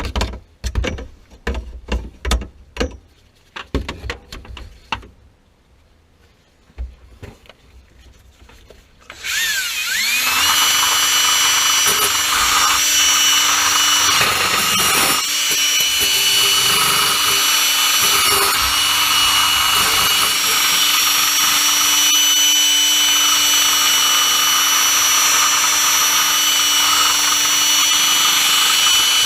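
A few sharp knocks and clicks, then about nine seconds in an electric power-tool motor spins up with a rising whine and runs steadily at high speed to the end.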